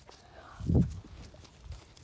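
A muffled low thump about three quarters of a second in, with a softer one near the end.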